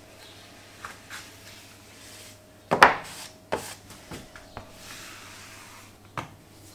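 Kitchen utensils handled on a floured benchtop: a sharp knock about three seconds in, then a few lighter taps and a soft rubbing as the excess flour is brushed away.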